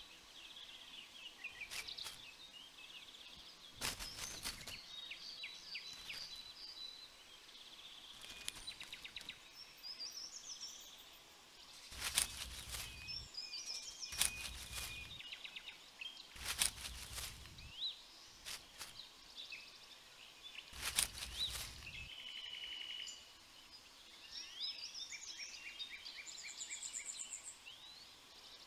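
Outdoor backyard ambience with small birds chirping and trilling throughout. Several louder rushes of noise, each about a second long, break in now and then.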